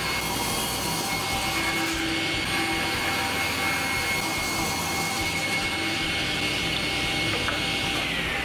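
Table saw running with a steady high whine while a board is ripped through the blade; near the end the saw is switched off and the whine falls in pitch as the blade spins down.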